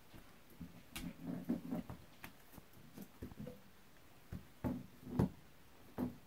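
Scattered light taps and clicks with a few louder thumps about two-thirds through and near the end: a small flashlight being handled by a baby vervet monkey and knocked against a tile floor.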